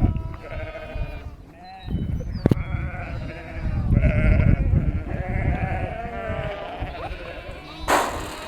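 A flock of sheep bleating, many calls overlapping one another. There is a sharp click a couple of seconds in and a short rushing noise near the end.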